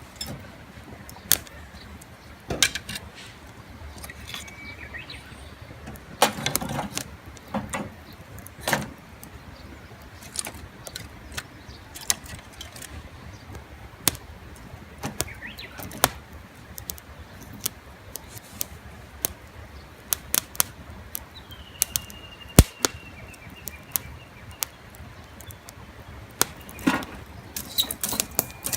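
Wood campfire crackling, with sharp pops and snaps scattered all through. There are a few heavier knocks, and a brief high whistling tone a little past the twenty-second mark.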